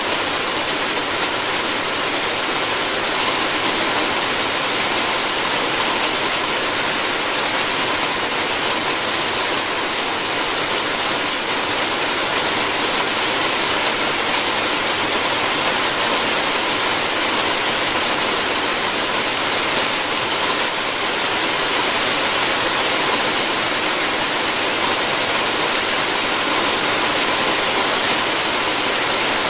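Steady rain falling on a roof: a constant, even hiss of drops that neither builds nor eases.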